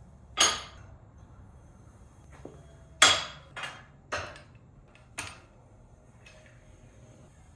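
Steel weight-stack plates clanking against each other as they are set down and lined up on the stack: a handful of sharp metal clanks, the loudest about three seconds in.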